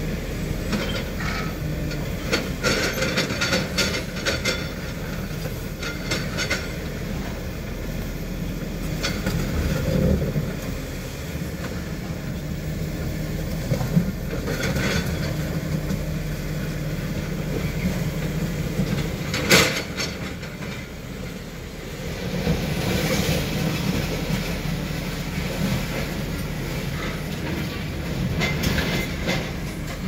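Excavator crushing a refrigerator with its claw. Engine running steadily under irregular crunching and scraping of sheet metal and knocks, with one sharp bang a little past the middle.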